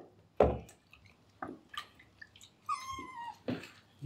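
Wet kitten giving one short complaining meow that falls in pitch about three seconds in, while water splashes and drips in the sink around it, with a louder splash about half a second in.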